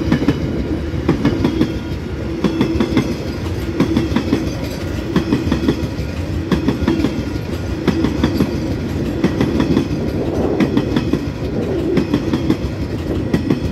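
Coal hopper wagons of a freight train rolling past, their steel wheels clattering over the track in a rhythmic clickety-clack that repeats about once a second as each wagon goes by. The last wagon passes near the end.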